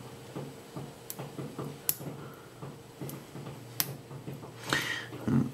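Lock pick and tension wrench working the pins of a Yale YE1 padlock: a run of small ticks with three sharper clicks.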